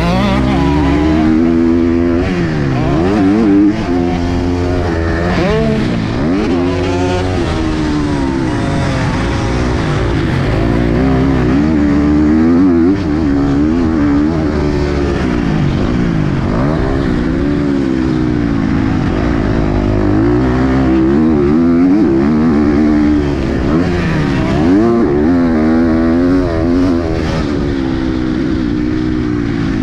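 KTM 250 SX-F single-cylinder four-stroke motocross engine, heard from on board the bike. It revs up and drops back again and again as the rider works the throttle and gears around the track.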